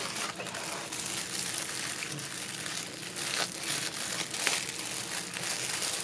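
Tissue paper crinkling and rustling as hands unfold it from around a small wrapped gift, with a few sharper crackles.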